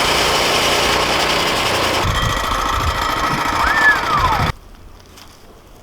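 Woodland Mills HM122 band sawmill running, its small gasoline engine driving the band blade through a log. The sound is loud and steady, then cuts off suddenly about three-quarters of the way in.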